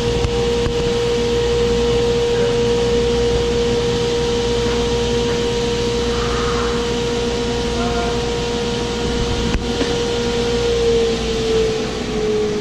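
Table saw running with its dust collection, a steady whine over a rush of air, while a sheet of plywood is ripped; the whine sags a little in pitch near the end.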